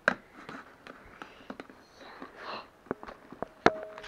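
Spoon stirring slime in a bowl: irregular clicks, scrapes and knocks of the spoon against the bowl, with a sharp knock just after the start and a louder one near the end that leaves a short ring.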